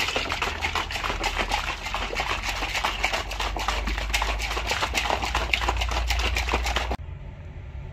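Plastic shaker bottle shaken hard by hand to mix protein powder with about 250 ml of water, a fast run of rattles and sloshing. The shaking stops suddenly about a second before the end.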